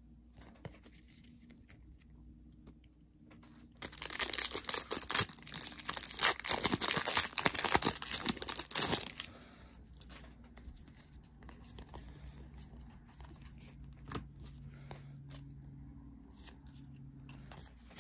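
A foil trading-card pack wrapper being torn open and crinkled, loud and crackly for about five seconds starting about four seconds in. Faint card-handling sounds come before and after it.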